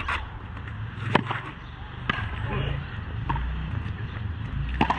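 Frontenis rally: a ball cracking off racquet strings and the fronton wall, roughly one sharp hit a second with the loudest a little after one second in, over a low rumble.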